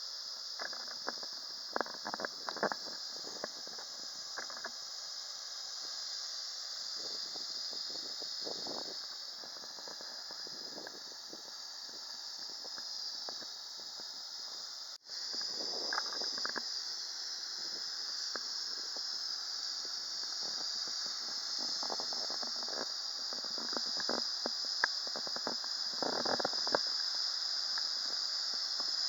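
Steady rushing-water hiss from the river running through the flow-through dam, with faint irregular crackles and a brief dropout about halfway.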